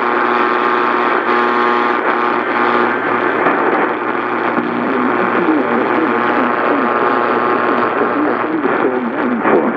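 Emergency alert audio received over a noisy radio channel: a steady hum of several tones under static hiss, with a wavering, voice-like sound coming in from about a third of the way through.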